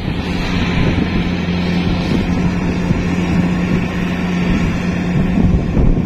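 Kubota DC-70 Plus rice combine harvester running steadily as it harvests: a constant engine drone with a steady hum, and wind buffeting the microphone.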